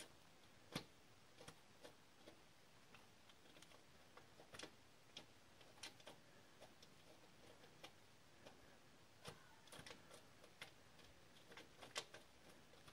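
Faint, irregular small clicks and taps of hand work on a loosened metal mounting bolt, a few sharper ones about a second in and near the end, over near silence.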